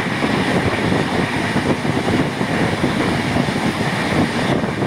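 Steady running noise of a moving LHB-coach passenger train, heard from an open door or window of the coach: a continuous rumble of wheels on the rails.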